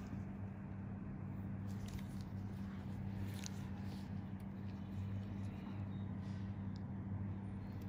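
A steady low machine hum, with a few faint short clicks scattered through it.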